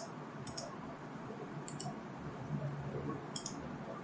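Computer mouse clicking three times, each click a quick double tick as the button is pressed and released, spaced over a second apart, over faint room hiss.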